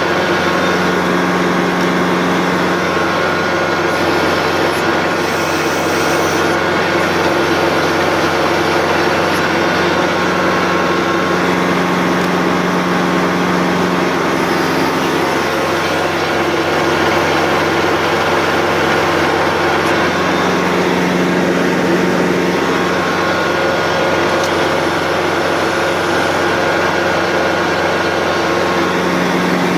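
Tractor engine running steadily under throttle, driving a Woods TSG50 PTO stump grinder; the drone swells and eases a little every few seconds.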